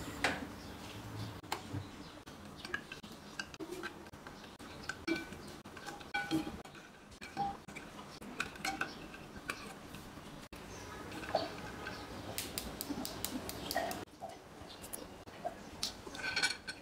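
Scattered clinks and knocks of kitchenware: a metal slotted spoon and boiled eggs tapping against a steel pot and a glass bowl of water, some clinks ringing briefly. About two-thirds of the way through comes a quick run of fast crackling clicks as the eggshells are cracked and peeled.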